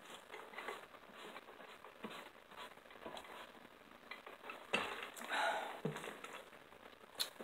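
Faint table-eating sounds: scattered small clicks and taps of fingers and a fork on plates, with a louder scrape or rustle about five seconds in.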